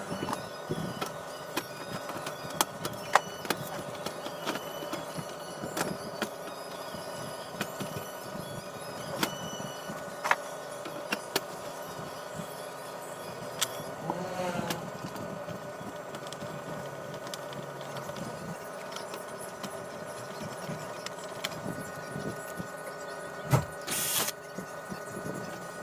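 Scattered clicks, taps and knocks of hands reassembling a mini hi-fi system, its parts and cable connectors being handled and fitted, with a short louder rustle or scrape near the end.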